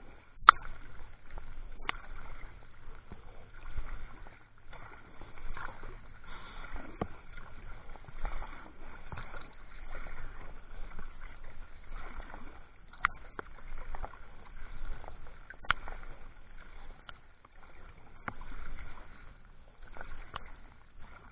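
Kayak paddling with a wooden Greenland paddle: splashing and sloshing swelling and fading with each stroke every second or two, with a few sharp knocks along the way.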